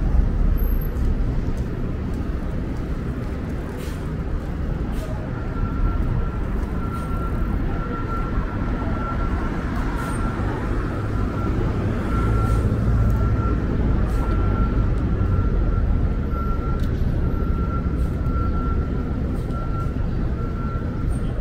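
Montreal metro train running in the station: a steady low rumble, joined about five seconds in by a thin high whine that pulses evenly.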